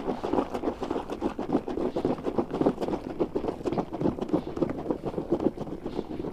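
A hand churning soapy water in a plastic bucket, quick irregular splashes and sloshes several times a second, as homemade liquid detergent (T-pol) is worked into a thick foam.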